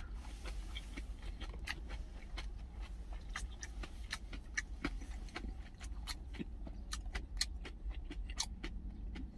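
Wooden chopsticks and spoon clicking and scraping against a stainless steel cup and a plastic lunch container, with chewing, in irregular small clicks over a steady low hum.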